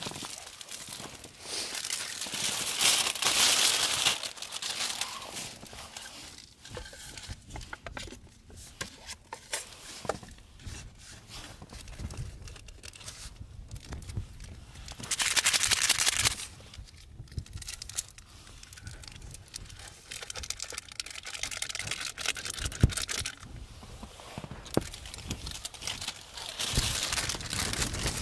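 Plastic food packaging crinkling and tearing by hand as a cup ramyeon is unwrapped, its seasoning packet torn open and its lid peeled back, in several separate bursts.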